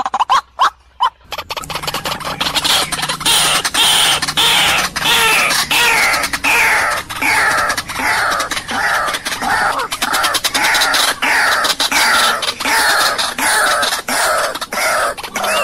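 White-breasted waterhens calling. It opens with a few short pulsed notes, then from about a second and a half in becomes a loud, continuous run of falling notes, roughly two a second, with sharp clicks between them. The uploader presents it as a female calling a male.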